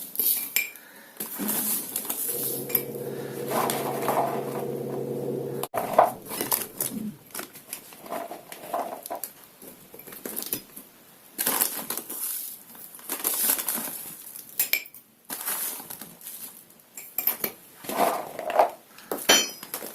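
A spoon scooping sugar and repeatedly clinking and scraping against a glass jar as sugar and sliced green pine cones are layered in. A steady low hum runs for about three seconds near the start and cuts off suddenly.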